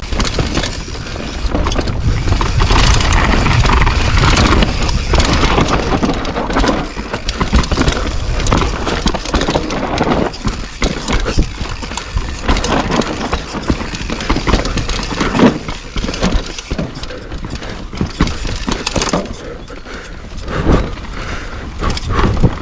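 Orange Stage 6 mountain bike riding downhill on a rough, slick trail: tyres rolling over dirt and rocks, with frequent knocks and rattles from the bike and a heavy rumble of wind and ground noise on the microphone.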